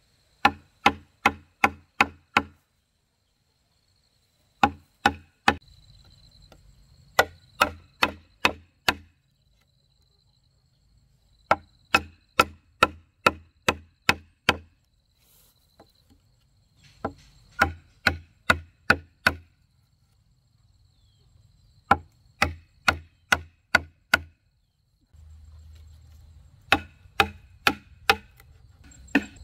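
A hand tool striking wood or bamboo in runs of four to six hard blows, about two a second, with short pauses between runs.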